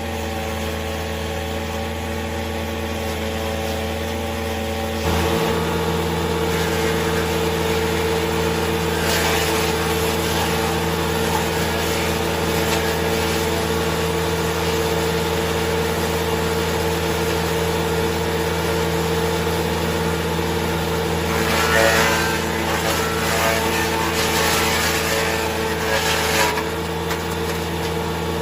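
Wood chipper's four-cylinder 490 diesel engine running steadily. About five seconds in it steps up in speed and loudness, and later there are two spells of rougher, hissing noise over the engine, a short one about a third of the way in and a longer one near the end.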